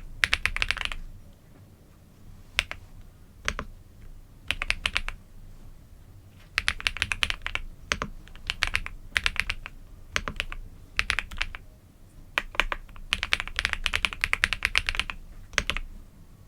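Typing on a computer keyboard: quick runs of key clicks broken by short pauses, with a few single keystrokes in between.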